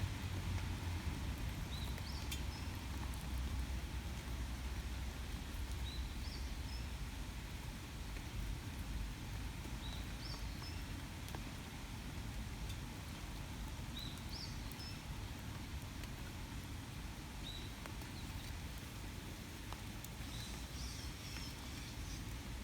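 Outdoor ambience in light rain: a steady low rumble under a faint patter, with a bird repeating a short two-note chirp about every four seconds and a few quicker calls near the end.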